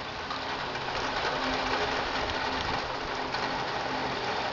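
Heavy rain falling steadily, growing a little louder about a second in.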